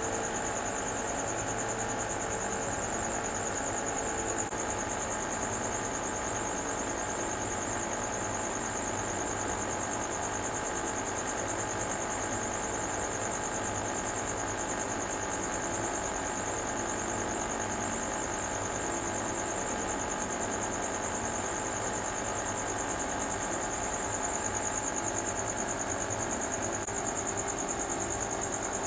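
Aquarium air pump and filter running: a steady hum with hiss and a thin high-pitched whine, unchanging throughout.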